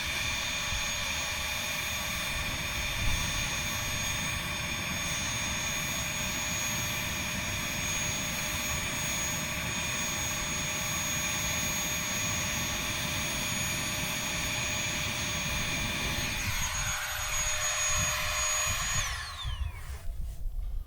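Small electric blower running steadily with a high whine, blowing air into a campfire that melting ice had nearly put out. Near the end it is switched off, and its pitch slides down as it winds to a stop.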